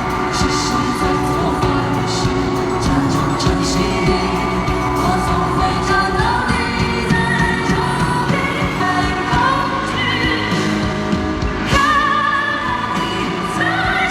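A pop ballad performed live in an arena: a male singer over full band backing with drum hits. The sung melody, with vibrato, stands out clearly from about six seconds in.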